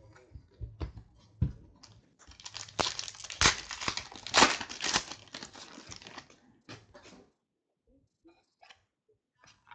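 Foil wrapper of a Panini Prizm trading card pack being torn open and crinkled: a dense crackling rustle with sharper rips that lasts about four seconds, with a few light clicks of cards being handled before and after it.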